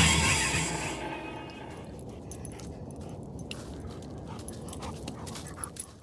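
Background music fading out over the first second or two, then a dog's small sounds over a low steady rustle with scattered short clicks, cut off abruptly at the end.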